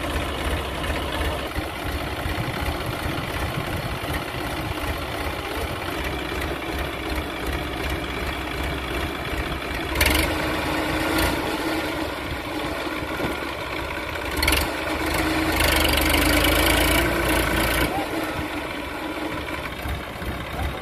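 Massey Ferguson 5245 DI tractor's three-cylinder diesel engine running steadily as the tractor sits stuck in mud. It gets louder from about halfway, with a sharp knock and then a louder stretch of about two seconds near three-quarters through.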